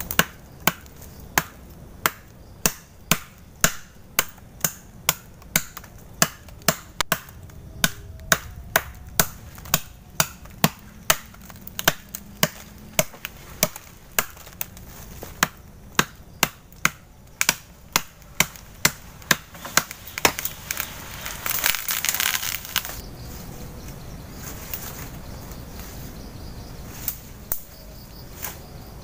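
Machete chopping into the trunk of a slender tree, sharp strikes about two a second. About twenty seconds in the chopping stops and a rush of rustling leaves follows as the tree comes down.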